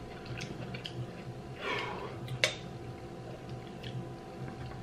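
Quiet room tone with a steady electrical hum, a short breathy sniff or exhale near the middle, and one sharp click just after it, with a few faint small ticks of tableware.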